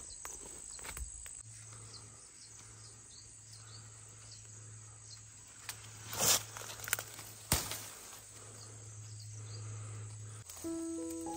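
Insects buzzing in a steady high-pitched tone over a low steady hum, with two short sharp crackles about six and seven and a half seconds in. Background music with plucked notes comes in near the end.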